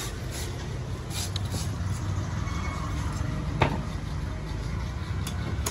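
Cleaver chopping the husk of a young green coconut on a wooden block: a handful of sharp chops, the loudest about three and a half seconds in, over a steady low rumble of traffic.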